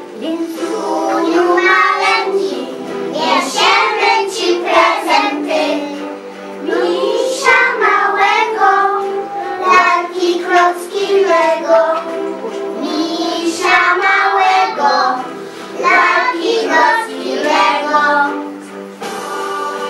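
A group of young children singing a song together over a steady instrumental accompaniment. The singing stops about a second before the end, while the accompaniment carries on.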